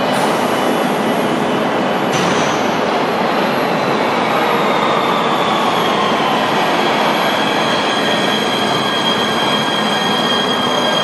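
Nuremberg U-Bahn train pulling into an underground station and braking: a steady rail rumble with a whine that falls in pitch, and a high squeal that sets in about halfway and holds.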